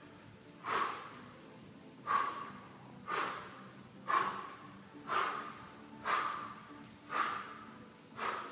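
A man's sharp, forceful exhales, one with each kick of a front/back kick combo, eight in a row at about one a second.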